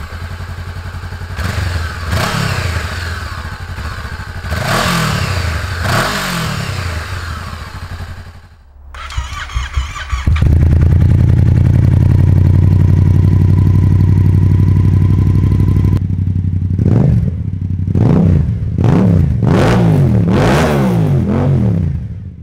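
A Honda CB500X parallel-twin motorcycle engine is revved in rising and falling blips for about eight seconds. After a cut, a Yamaha MT-07's 270-degree parallel twin runs loud and steady for several seconds, then is blipped repeatedly near the end.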